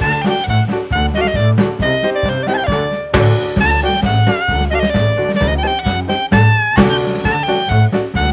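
Background music: a jazzy instrumental with a horn-like melody over a walking bass and a steady beat.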